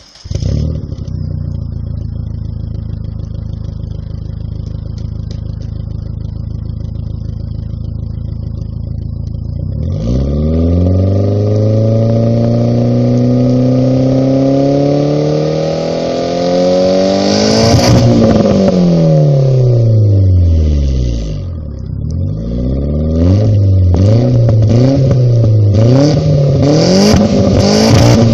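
Mitsubishi Airtrek Turbo's turbocharged four-cylinder engine through a Borla exhaust with a single resonator. It comes in suddenly and idles steadily for about ten seconds, is revved up slowly in one long rise and let fall back, then is blipped quickly and repeatedly near the end.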